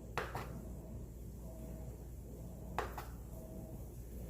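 Kitchen knife tapping against a cutting board while cubing butter: two sharp taps just after the start and one more nearly three seconds in, over a low steady hum.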